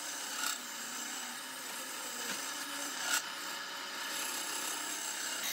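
Steady rubbing and scraping of a tool on wood, with two short sharp clicks, about half a second and about three seconds in.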